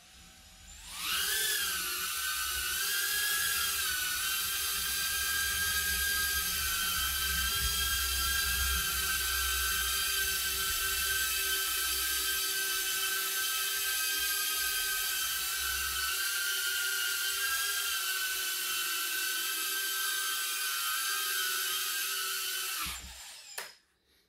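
Micro FPV quadcopter's motors and propellers whining as it lifts off and hovers, the pitch rising briefly at takeoff and then holding steady. The even pitch goes with a level hover that needs no stick corrections, the drift trimmed out by the accelerometer calibration. The whine cuts off near the end as the drone lands and disarms.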